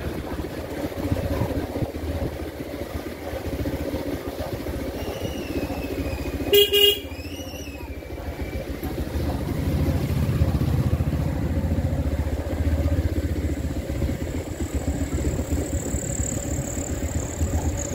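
Motorcycle engine running as it rides along, with a continuous low rumble that grows louder about ten seconds in. A short horn toot sounds about six and a half seconds in.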